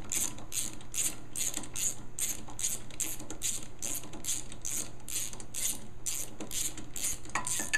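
Ratchet fitted with an extension and a 13/16-inch spark plug socket clicking steadily, about three clicks a second, as it unthreads the spark plug from a Honda lawn mower engine.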